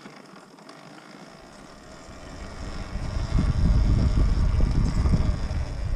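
Talaria Sting MX4 electric dirt bike moving off on a dirt trail. It is quiet at first; from about two seconds in, a loud, uneven low rumble of wind buffeting the microphone builds as the nearly silent electric bike picks up speed.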